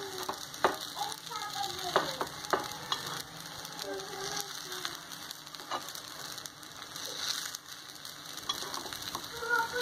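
Appe sizzling in oil in a cast-iron appe pan, with a steady hiss. A steel spoon and knife scrape and click sharply against the metal cups several times as the dumplings are turned over.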